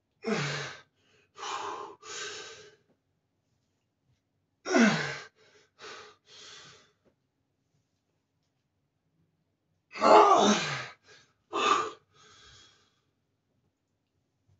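A man's grunts of effort during heavy barbell back squats, three times about five seconds apart, one per rep. Each is a loud grunt falling in pitch, followed by two or three shorter breaths.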